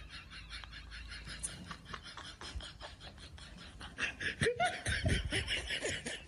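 People laughing in quick repeated bursts, growing louder about four seconds in.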